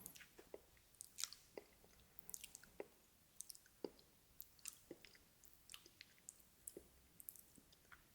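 Close-miked ASMR mouth sounds: a run of irregular, soft wet clicks and smacks of lips and tongue, several a second, like chewing.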